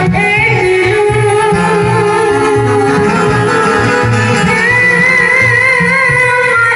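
Amplified live Gujarati folk music: a keyboard melody of held, wavering notes over a steady low drum beat.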